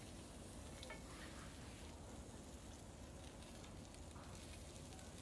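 Faint, steady sizzling of meat cooking on a small grill, with a few light clicks of metal tongs about a second in.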